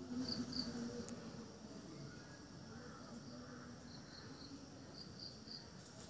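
Short high-pitched chirps from a small animal, in groups of two and three, over a faint steady outdoor background.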